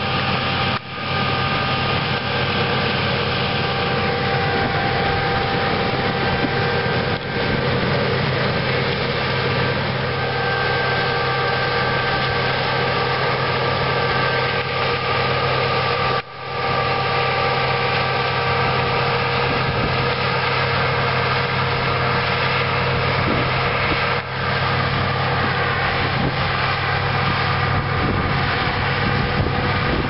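International Harvester 1440 Axial-Flow combine running steadily under load while harvesting corn: a constant low diesel drone with several steady whining tones from the machinery.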